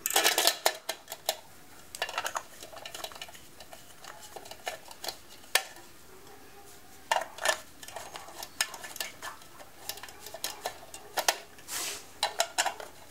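Wheel center cap clinking and clicking against the wheel and lug nuts as it is fitted and pressed on by hand: irregular metallic clicks, a cluster right at the start and another near the end.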